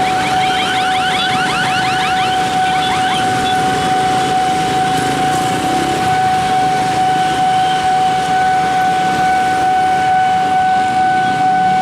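Railroad level-crossing warning alarm sounding one steady high tone, with rapid repeating rising sweeps over the first three seconds, over traffic noise.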